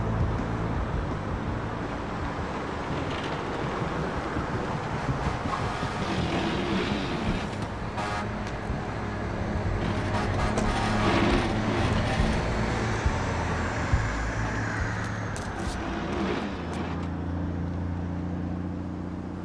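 Road traffic: cars and trucks passing, with a steady low engine hum and the swell of vehicles going by. There are a few sharp knocks in the middle.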